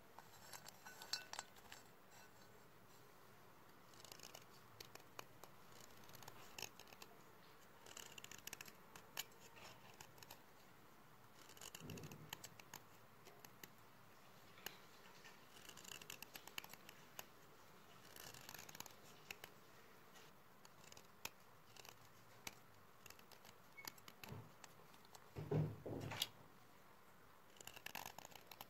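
Metal knife blade scraping and shaving a stick of white chalk in short, quiet, scratchy strokes that come in clusters every second or two, with chalk crumbling. A heavier crunch comes near the end.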